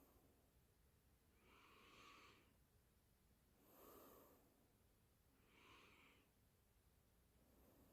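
Faint breathing, three soft breaths about two seconds apart.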